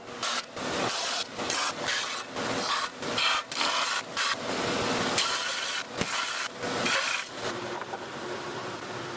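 Something being rubbed and scraped against wood by hand in quick, irregular strokes, which stop about seven and a half seconds in.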